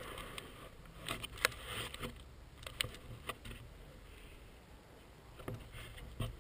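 Footsteps through grass with the rustle and knock of riding gear against a helmet-mounted camera: irregular sharp clicks over a low wind rumble.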